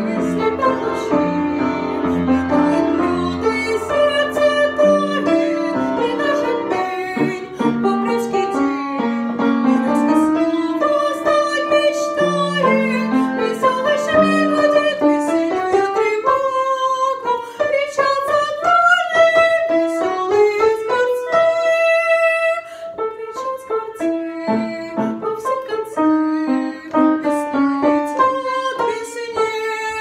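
A young woman singing a Russian song solo, with piano accompaniment.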